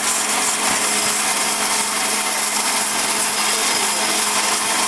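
Wood-Mizer band sawmill running and sawing a log: a loud, steady noise of the blade cutting, over a constant low hum.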